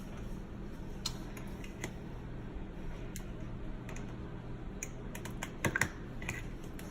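Kitchen handling noises: scattered light clicks and taps of food and utensils being handled, over a steady low hum, with a short cluster of louder clicks near the end.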